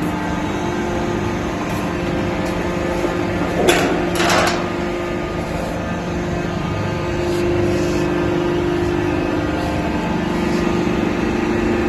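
A sink-forming machine running with a steady, even hum. Two short clattering knocks come about four seconds in.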